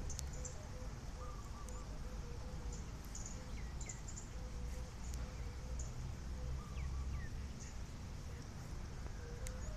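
The sanu hummer bow on a 100 cm Chula Noi kite humming in strong wind, a steady drone that fades in and out as the kite rides the gusts, over low wind rumble on the microphone. Small birds chirp now and then.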